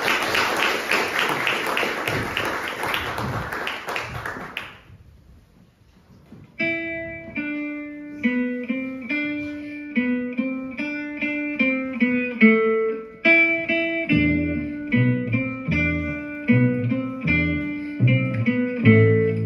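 Audience applause, fading out about five seconds in. After a short pause, music of plucked guitar-like notes starts, and a bass line joins about halfway through.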